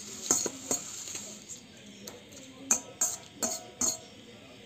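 A metal utensil stirring and knocking in a cooking pot: irregular sharp clinks, each with a short ring, in two bunches, one in the first second and one in the second half.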